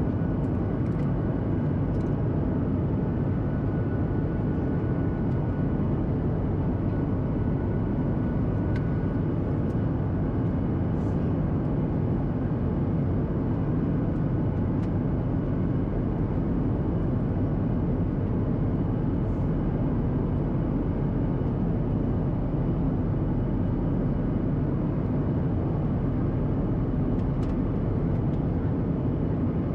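Steady engine and airflow noise inside the cabin of a Boeing 737-800 descending on approach, a constant low rumble and rush from its CFM56-7B turbofans and the air over the fuselage. A faint high whine comes in after about two seconds and fades out around nine seconds.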